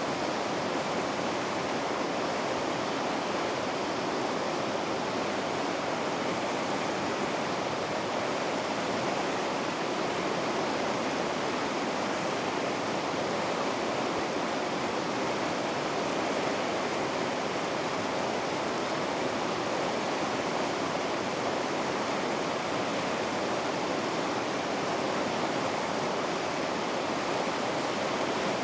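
River rapids rushing, a steady even roar of moving water with no change in level.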